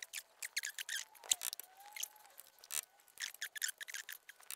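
A long metal tool scraping, picking and knocking at a seized ABS wheel speed sensor stuck in its hub bore, breaking out its magnet core and copper winding. It makes many short, irregular scratches and clicks, with a couple of sharper knocks.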